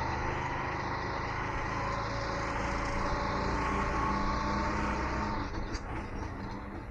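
An old auto rickshaw's engine running steadily with a low, even rumble. About five seconds in, the low rumble falls away and the sound gets quieter.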